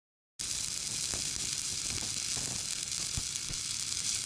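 Stick welding arc burning a 7018 electrode overhead: a steady sizzling hiss full of small crackles that cuts in suddenly about half a second in.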